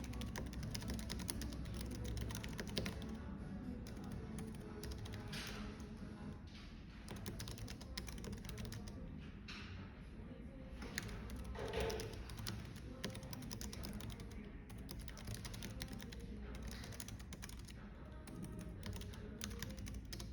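Typing on a computer keyboard: a fast, uneven run of keystroke clicks, over a steady low cafe background with soft music.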